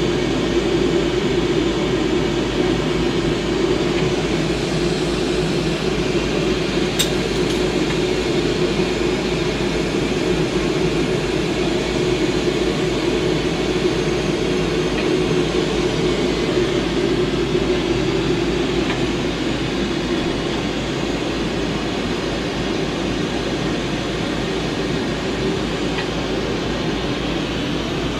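Steady rushing noise of a glassblower's bench torch flame burning continuously, mixed with the hum of the overhead exhaust fan, easing slightly in level near the end.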